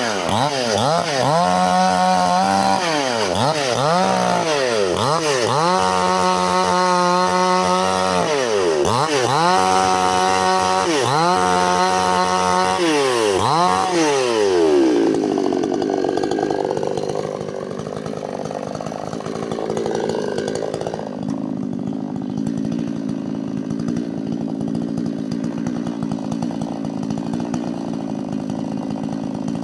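Chainsaw cutting wood, its engine revving up and falling back over and over. About halfway through the pitch drops and settles into a lower, steady running note.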